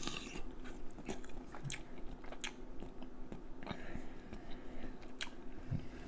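Close-up mouth sounds of a person biting into and chewing a shrimp: wet smacks and sharp clicks, irregular, about once a second.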